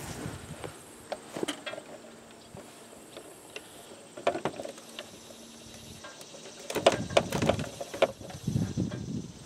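Scattered clicks and light knocks of hands working a leather belt onto a treadle sewing machine's lower drive wheel, with a cluster of sharper clicks about seven seconds in.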